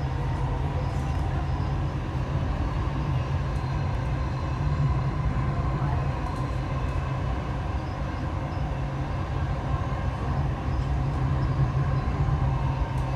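Dubai Metro train running along its elevated track, heard inside the carriage: a steady low rumble with a faint hum over it.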